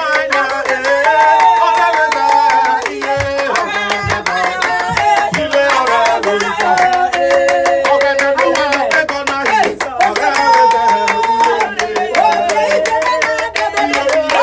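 Upbeat gospel praise music with sustained keyboard-like tones, a fast, dense percussive beat and hand-clapping, with singing voices.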